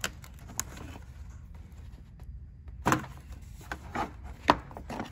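Rubber air intake duct being twisted and worked off a throttle body by hand: rubbing and scattered short plastic knocks, the sharpest about four and a half seconds in.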